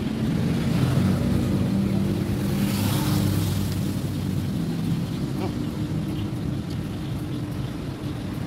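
Steady low engine hum of vehicles, with a rushing swell as one passes about three seconds in.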